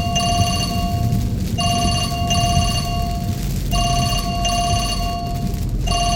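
A phone ringing: an electronic trilling ring repeating in rings of about a second with short breaks between them, over the steady low rumble of a car driving.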